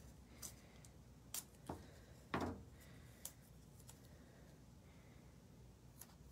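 Quiet handling of masking tape on a canvas: a few soft crackles and taps, the loudest a dull tap about two and a half seconds in.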